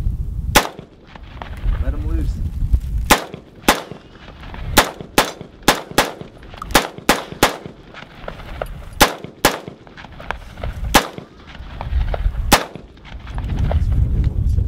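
Unsuppressed AR-15-style semi-automatic carbine firing a string of about fifteen single shots. Most come in a quick run of shots a fraction of a second apart in the middle, with slower, spaced shots before and after. A low rumble lies under the gaps, loudest before the first shot and near the end.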